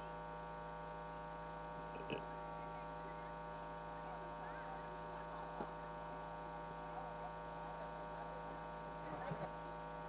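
Steady electrical mains hum, a constant low buzz, with faint audience murmur and a small knock about two seconds in.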